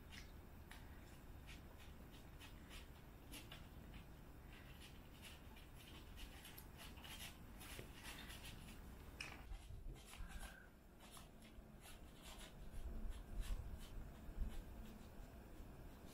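Several cats eating from plates: faint, irregular clicking of chewing and lapping. A few louder low thumps come near the end.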